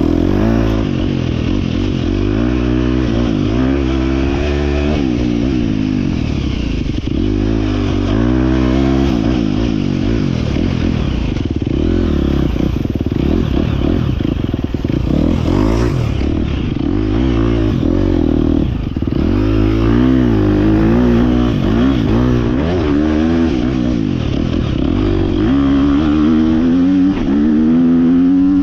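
KTM dirt bike engine revving up and down over and over as it is ridden, its pitch rising and falling with each twist of the throttle and climbing high near the end.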